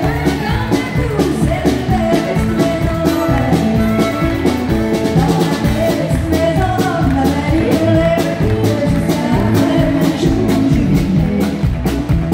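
Live country band playing, with a woman singing lead over electric guitar, bass and drums keeping a steady beat.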